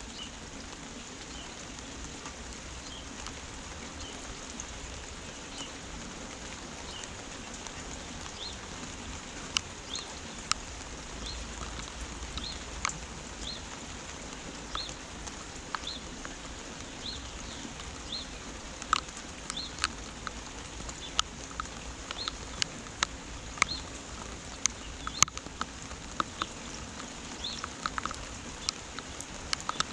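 Steady rain, with single drops striking a nearby surface in sharp ticks that come more often in the second half. Through it a bird repeats one short high chirp about once a second.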